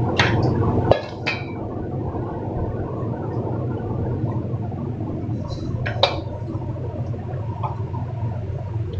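A few light knocks and clinks as a large stainless-steel mixing bowl and a silicone spatula are handled and set on the countertop, the clearest about six seconds in, over a steady low background hum.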